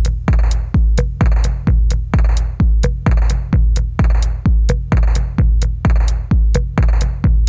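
Background electronic dance music: a heavy kick drum on a steady beat of about two a second, with crisp high ticks between the beats.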